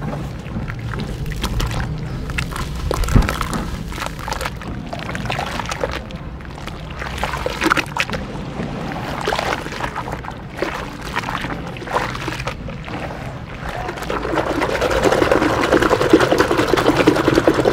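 Hands squeezing and crumbling soft wet sand in soapy, foamy water in a plastic tub, with irregular squelches, splashes and sloshing. Toward the end the churning gets faster and louder, a dense frothy crackle of foam and water.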